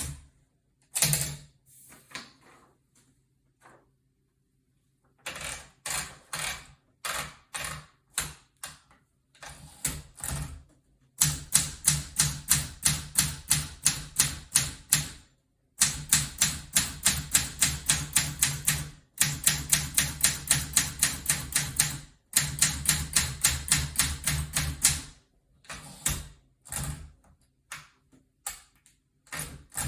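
Olympia SM9 manual portable typewriter being typed on: scattered key strikes at first, then a fast, steady run of keystrokes lasting about fourteen seconds with a few short pauses, slowing to scattered strikes near the end.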